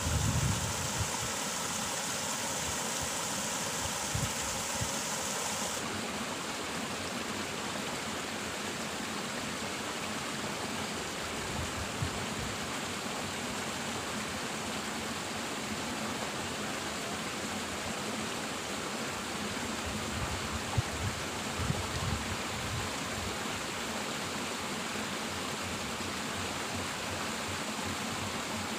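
Steady rush of water flowing through a small irrigation ditch, where water spills over a little culvert outlet. The hiss thins about six seconds in, and a few soft low knocks come about two-thirds of the way through.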